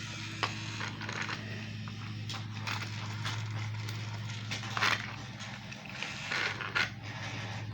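Plastic toy trains and track pieces clicking and clattering as they are handled and run, with a few sharper clacks. Underneath is a steady low hum from a lawnmower running outside.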